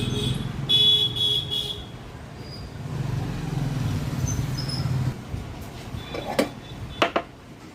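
Motor vehicle traffic running, with a brief high toot about a second in and two sharp clicks near the end.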